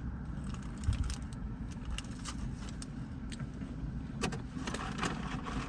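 Steady low hum of a car interior, with scattered small clicks and crinkles of handling food and its wrapper, busier from about four seconds in.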